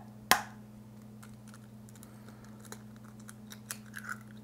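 Small clicks and taps from a clear plastic egg carton being handled while eggs are picked out, with one sharp click about a third of a second in. Near the end an egg is cracked open over a glass measuring cup.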